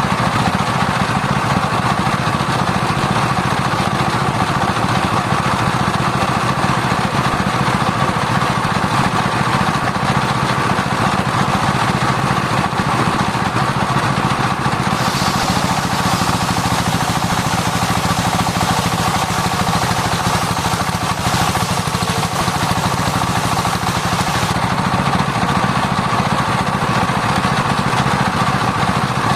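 Circular-blade sawmill running steadily with a constant machine hum. Roughly halfway through, a brighter hissing layer joins for about ten seconds as the blade cuts through sengon wood, then drops away.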